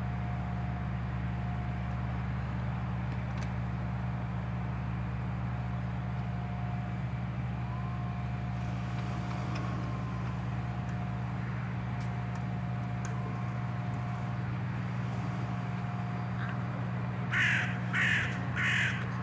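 Steady drone of a Cessna 172R Skyhawk's four-cylinder Lycoming piston engine and propeller at takeoff power as it rolls, lifts off and climbs away. Near the end a crow caws four times, louder than the engine.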